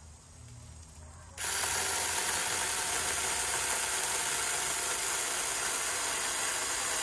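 Cordless SAKER 4-inch mini chainsaw switching on about a second and a half in and running steadily as its chain cuts through a branch about 2.5 inches thick.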